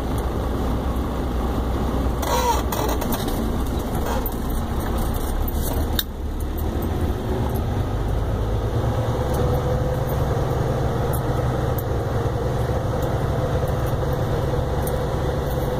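Semi truck's diesel engine running, heard from inside the cab as a steady low drone; its note rises a little about seven seconds in. A single click near six seconds.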